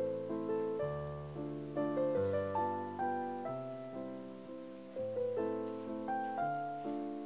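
Background music: a gentle piano melody with chords, notes struck and left to fade.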